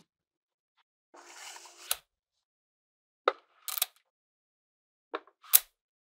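Small magnetic balls clicking and snapping together as magnet-ball panels are set into place: a brief rattle about a second in that ends in a sharp snap, then two pairs of sharp clicks.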